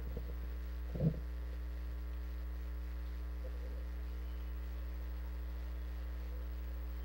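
Steady electrical mains hum on an open broadcast commentary line, with one short low bump about a second in.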